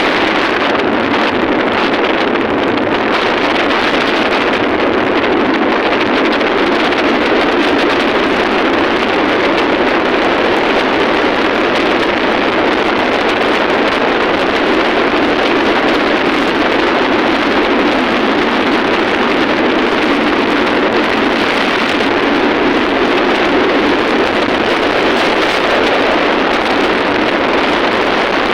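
Steady, loud rushing noise of a moving vehicle, with wind on the microphone.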